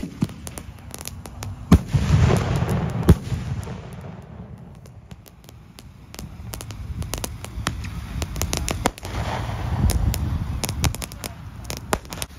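Consumer fireworks going off: a scatter of sharp bangs and crackling pops at irregular intervals, the two loudest bangs about two and three seconds in. The popping thins out for a couple of seconds in the middle, then picks up again.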